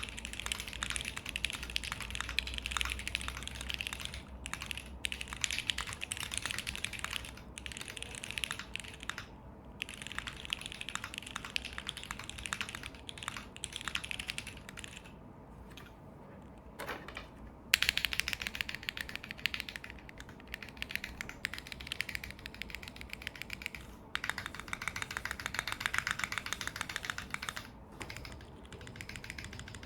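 Continuous fast typing on a TGR x SINGA Unikorn R2.2 custom mechanical keyboard: lubed JWK Alpaca linear switches in an FR4 plate with GMK keycaps, a rapid patter of keystrokes. There are brief pauses, and a longer lull about halfway through before the typing picks up again.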